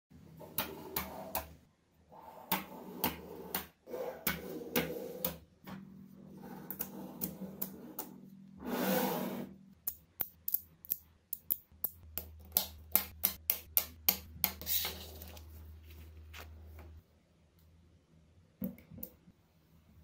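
5 mm neodymium magnetic balls clicking and snapping together as they are handled, in irregular runs of sharp clicks that come quicker between about ten and fifteen seconds in, with a brief rattling rub of balls about nine seconds in. A faint steady low hum lies underneath.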